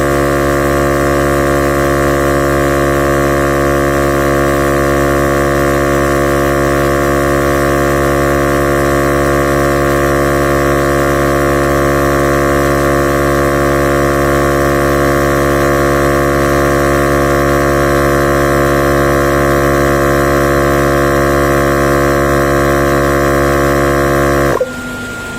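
Portable 12-volt tire inflator compressor running steadily, pumping up a car tire, then shutting off by itself near the end when it reaches its set pressure of 32 psi.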